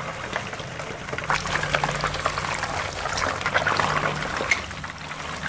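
Steamed scad fish sizzling and crackling in a wok of hot oil over high heat, the crackle growing louder and denser about a second in. A low steady hum runs underneath.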